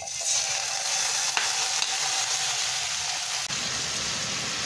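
Rinsed omena (dagaa), small fish, sizzling in hot oil in a metal frying pan as they are shallow fried: a steady frying hiss that starts suddenly as the fish go in. A wooden spoon stirs them.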